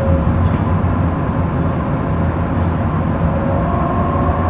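Inside a city bus: the steady low rumble of the engine and road, with a faint steady whine above it.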